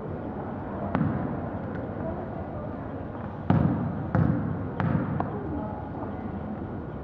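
A basketball bouncing on a gym floor: one bounce about a second in, then four more in a quick dribbling rhythm past the middle, over a background murmur of voices.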